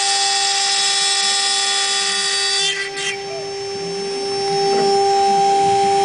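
CNC router spindle running with a steady high whine while cutting 4 mm Bond aluminium composite panel. About three seconds in the noise briefly scrapes and dips, then builds back up.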